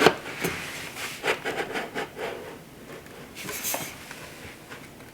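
Plastic parts of a cordless vacuum's charging and dust-collection station being handled and fitted together: a sharp click at the start, then light clicks and knocks, and a brief rustle about three and a half seconds in.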